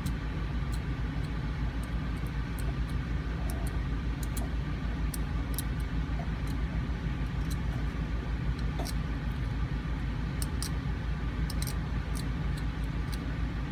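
Faint sharp clicks and scrapes, scattered unevenly, of a metal hand dental scaler working tartar off a dog's teeth, over a steady low mechanical hum.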